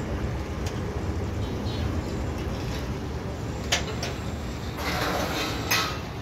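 Utensil clatter at a deep-frying karahi, over a steady low rumble: a metal slotted spoon clinks against the pan twice in the middle, then a short rasping burst near the end ends in a sharp clack.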